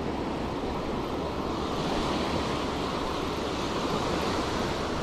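Surf breaking and washing up a sandy beach: a steady rushing that swells about a second and a half in.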